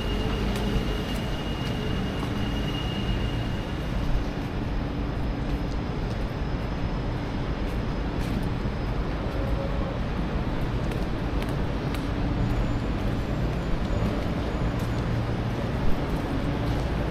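Steady low rumble of a vehicle in motion, with a few brief clicks or knocks.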